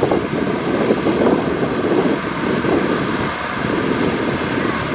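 Kubota two-wheel walking tractor's single-cylinder diesel engine running, with wind buffeting the microphone.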